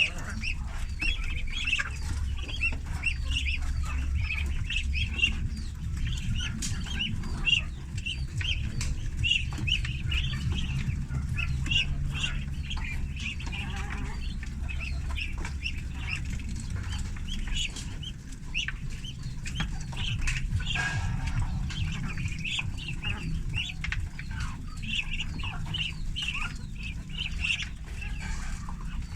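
A brood of ducklings peeping continuously, many short high peeps overlapping, over a low steady rumble.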